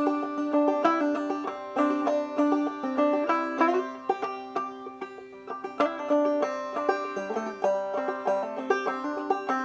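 Banjo played in the clawhammer style: a quick, steady run of plucked notes ringing over one another.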